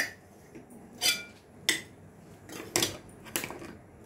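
Metal spoons clinking and scraping against plates and stainless steel dishes as food is served. There are about five sharp clinks, each with a short ring, spaced roughly a second apart.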